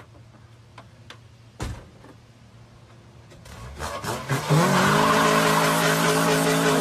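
An engine revs up hard from about three and a half seconds in and then holds a steady high pitch under a loud rushing hiss. A single thump comes about a second and a half in.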